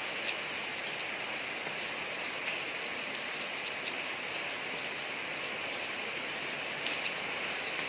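Steady rain falling on a street, an even hiss with scattered individual drop ticks.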